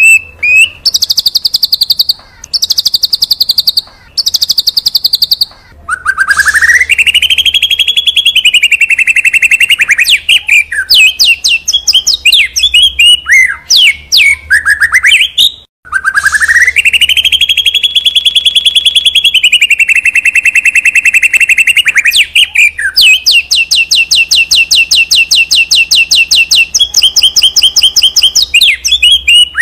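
A Borneo-type white-rumped shama (murai batu borneo) in full, non-stop song: three short high trills, then two long pulsing whistled phrases that rise and fall, with quick chirps between them, and a long rapid trill near the end.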